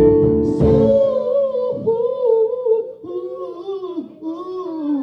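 A gospel band's closing chord with drums cuts off about a second in, and a single voice carries on alone, singing a slow line that bends up and down in pitch.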